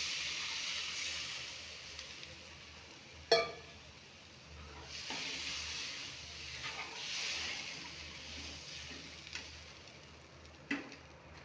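Water poured into a hot kadhai of fried onion-garlic masala hisses and sizzles, dying down over the first two seconds. A steel spoon then stirs the gravy as it sizzles again, with a sharp clink of the spoon against the pan about three seconds in and another near the end.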